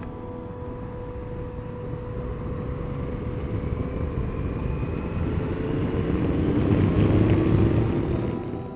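Yamaha Tracer GT motorcycle accelerating from a roundabout up to motorway speed, heard from the rider's helmet camera. The engine note rises in pitch under a rush of wind that grows louder, peaking near the end.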